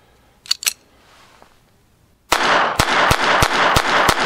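Two sharp clicks as the small .22 pistol is readied, then six .22 LR shots fired in quick succession, about three a second, each followed by ringing echo.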